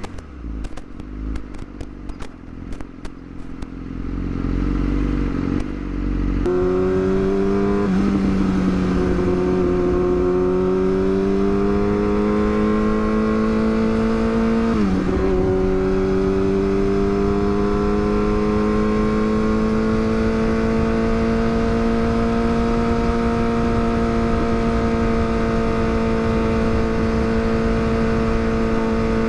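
Yamaha R6's inline-four engine under way: quieter with scattered clicks at first, then about six seconds in it pulls away, rising in pitch, with quick upshifts near eight and fifteen seconds, after which it climbs slowly and holds a steady cruising pitch.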